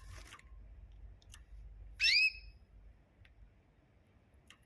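A small bird gives one short, high chirp that sweeps downward, about two seconds in, with a few faint clicks around it.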